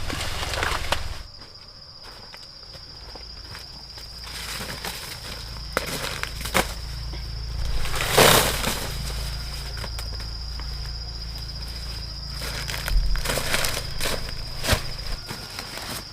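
A steady high insect drone, like cicadas or crickets, with scattered rustling, crunching steps and short clicks; a louder rustle about eight seconds in.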